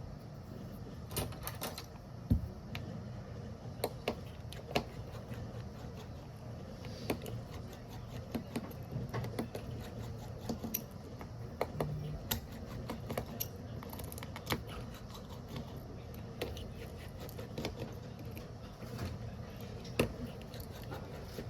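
Irregular small clicks and light taps, scattered a few at a time, of hand tools working on a smartphone's parts, over a steady low hum.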